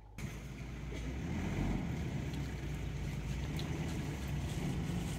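Safari vehicle's engine running at a steady low idle, cutting in abruptly just after the start.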